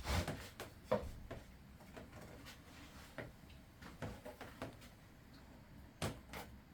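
Light knocks and clicks of wooden strips and tools being handled while measuring for a cut, with a sharper knock at the start, another about a second in, and one more near the end.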